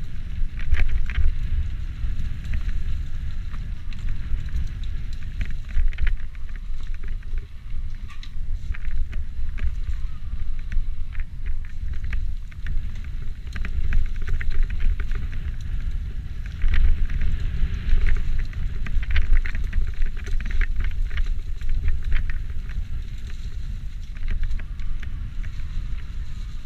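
Wind rumbling over the camera microphone as an e-mountain bike is ridden on a rough singletrail, with frequent rattles and clicks from the bike over the uneven ground.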